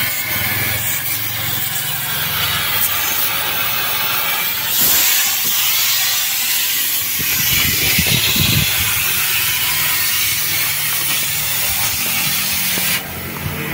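Gas cutting torch hissing steadily as it cuts through the sheet metal of a truck cab, louder from about five seconds in and easing off near the end.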